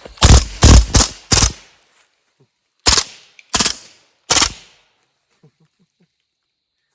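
Hatsan Blitz full-auto air rifle firing: a fast run of about five shots in the first second and a half, then three single shots less than a second apart.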